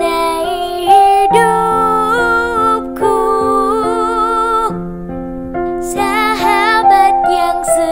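Slow background song: a voice singing long, wavering held notes over piano chords, the voice breaking off briefly about five seconds in before coming back.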